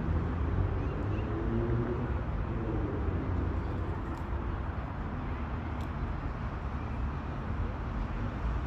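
Town street ambience: a steady, low rumble of road traffic.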